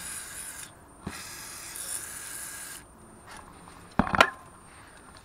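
Aerosol can of WD-40 penetrating spray hissing in two bursts, a short one then a longer one, soaking a rusted hub bolt to free it. A brief metallic clank of tools about four seconds in.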